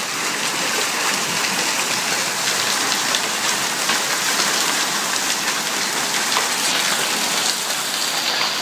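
Hail and rain falling steadily: a dense hiss of falling water with many small, sharp hailstone impacts ticking through it.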